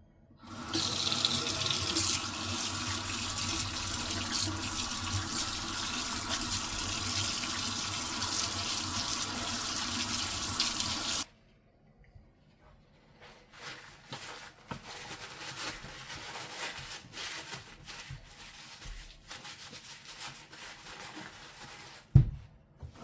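Water running steadily from a tap for about ten seconds, a radish being washed under it, then shut off suddenly. Quieter rubbing and handling sounds follow, with one sharp knock near the end.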